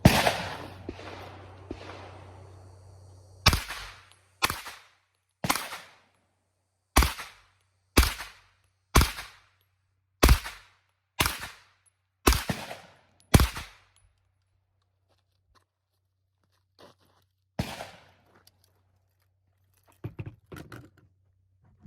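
A 9mm AR-15-pattern carbine fired semi-automatically: a string of about ten shots roughly a second apart, then one more shot a few seconds later.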